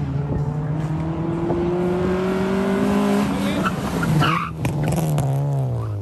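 Autocross car's engine held at high revs through the cones, its pitch slowly rising. About four seconds in the tyres squeal briefly, and then the revs drop away.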